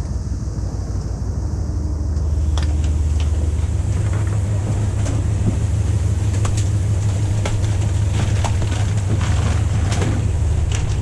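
Fishing boat's engine running steadily underway, a constant low hum over the rush of wind and water. From about two seconds in, scattered clicks and knocks come from on deck.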